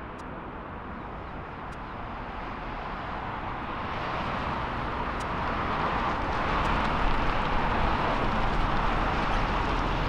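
Jet airliner engine noise, a rushing roar over a low rumble that grows steadily louder as the aircraft approaches.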